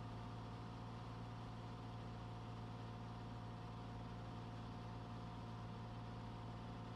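Steady engine and propeller drone of a single-engine piston airplane in cruise, heard inside the cabin. It is an even, unchanging hum with a faint steady whine above it.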